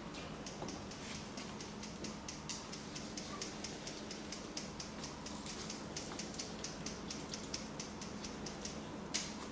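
Hands massaging a person's neck and shoulders: a quick run of soft, dry skin-on-skin ticks and rubs, about three or four a second, with one sharper click near the end, over a low room hum.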